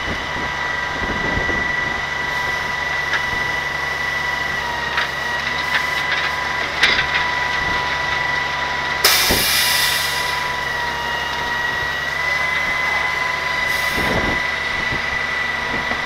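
Grapple truck's engine running steadily with a high whine while the grapple claw loads cardboard into the bed; a loud burst of hiss with a knock about nine seconds in, and a shorter hiss near the end.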